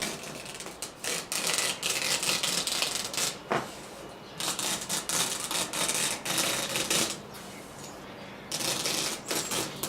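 Utility knife blade slicing off the excess window screen mesh along the spline groove, a rapid crackling scratch in three runs broken by short pauses as the blade moves along the frame.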